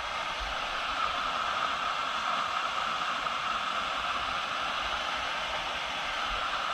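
Steady rushing of a waterfall: an even hiss of falling water with no breaks.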